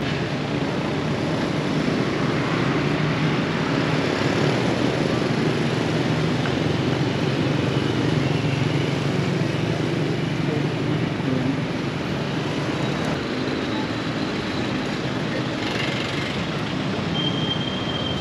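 Street traffic: cars and a motorcycle running along a town road, a steady low rumble of engines and tyres.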